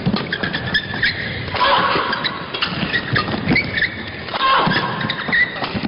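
Badminton doubles rally: rackets striking the shuttlecock in quick exchanges, with shoes squeaking on the court floor over a murmuring crowd.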